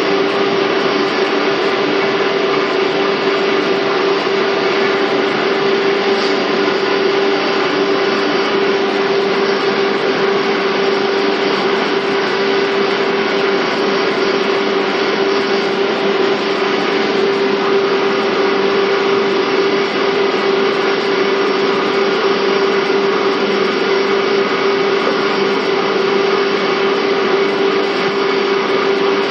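Interior running noise of a JNR 485-series electric train's motor car, MoHa 484-206: a loud, even rush with a constant mid-pitched whine that does not change.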